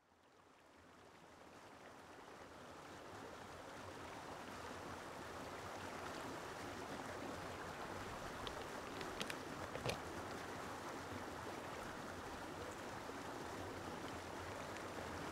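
Steady rush of a flowing stream that fades in over the first few seconds. A few sharp clicks come about nine to ten seconds in, from the lid of a plastic tub being handled.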